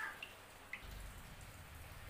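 Faint water drips, two small plops early on, from yam pieces being washed in a pan of water, with a low hum starting about a second in.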